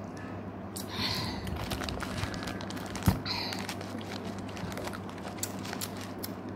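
Small sips and handling noises from drinking out of small plastic Yakult bottles, with a short hissy sip or sniff about a second in and again after three seconds. One sharp thump about three seconds in is the loudest sound, over a steady low hum.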